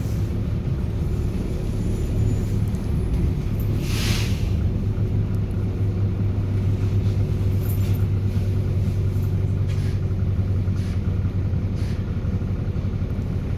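Volvo B7RLE bus's six-cylinder diesel idling at a standstill, heard from inside the saloon, with its loud engine cooling fan running as a steady drone. About four seconds in there is a short hiss of released air.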